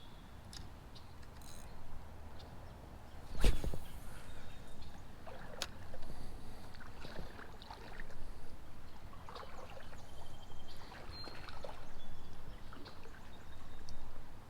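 Creek water splashing and sloshing in uneven swells every couple of seconds, the sound of wading, with one sharp knock about three and a half seconds in.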